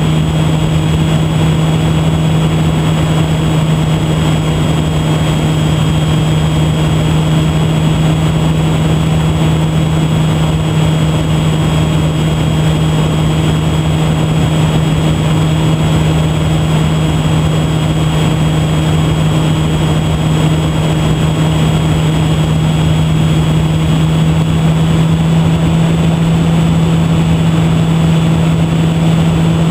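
Electric motor and propeller of a HobbyZone Super Cub RC plane with an E-flite Park 480 brushless motor, recorded on board in flight: a steady, loud drone that holds one pitch at cruise throttle, with wind rushing over the microphone.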